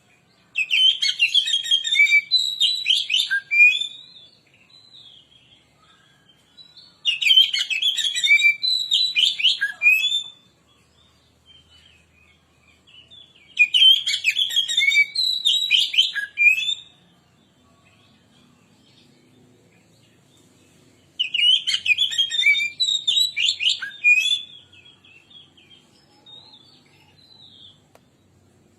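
Oriental magpie-robin singing: four loud phrases of quick, varied whistled notes, each about three seconds long, with pauses of a few seconds between them.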